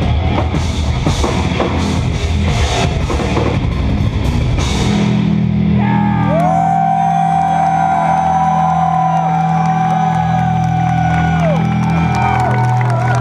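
Instrumental progressive metal played live on eight-string guitars and drum kit. About five seconds in the drums stop and the guitars' held chords and a long, bending high note ring out as the song ends.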